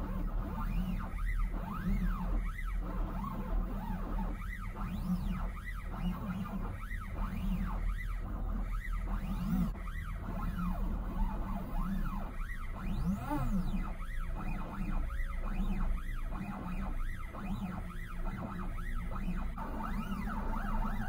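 Stepper motors of a 3D-printed Dremel CNC running as a pen plotter, whining with a pitch that rises and falls with each short stroke, about once or twice a second, over a steady low hum.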